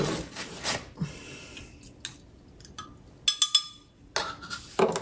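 Kitchen counter handling, with a quick run of about four light clinks a little after halfway as a metal probe thermometer knocks against a glass measuring cup of water.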